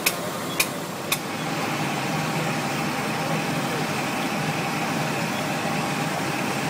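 Vehicle engine idling steadily. Three sharp ticks about half a second apart come in the first second or so, then only the engine.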